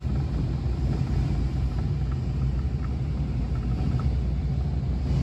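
Steady low rumble and hum of a hydroelectric dam powerhouse's air-conditioning and ventilation system together with the plant's machinery, with a few faint ticks in the middle.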